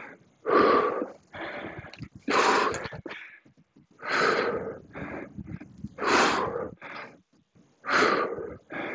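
A man's heavy, forceful breathing under exertion during dumbbell deadlift reps. A loud exhale comes about every two seconds, with a softer breath between each pair.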